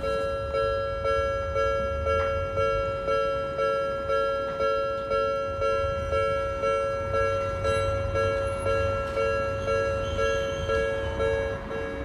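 Japanese railroad crossing warning bell ringing: a two-tone electronic ding struck about twice a second, each strike fading before the next.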